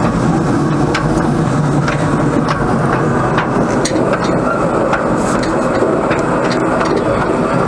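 Replica Lewin 0-4-0 steam locomotive running along narrow-gauge track, heard from on the engine. A steady, loud running noise is scattered with irregular clicks and rattles of wheels and running gear on the rails.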